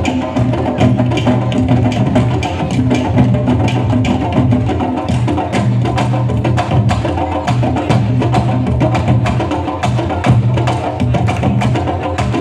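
Candombe drumming by a group of drummers: dense, fast drum strokes mixed with sharp wooden clicks of sticks on the drums, steady and unbroken.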